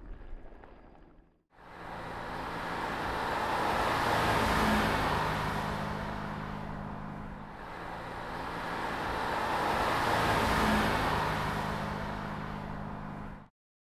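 A car drives past twice, each pass swelling up to a peak and fading, with a steady engine hum under the tyre and road noise. Before that, the tail of a helicopter's rotor noise cuts off about a second and a half in.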